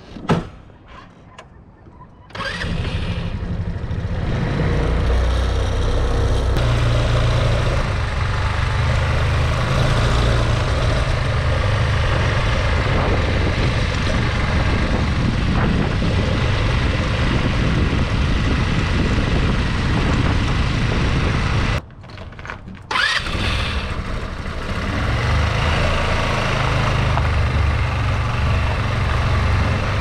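GY6 150cc four-stroke single-cylinder scooter engine running while the scooter is ridden. A sharp click comes just after the start and the engine sound comes in about two seconds later. It cuts out suddenly for about a second near three-quarters through, then resumes.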